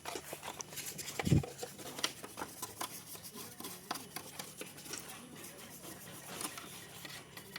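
Faint, scattered clicks, taps and scrapes of scooter parts being handled and cleaned, with one dull thump about a second in.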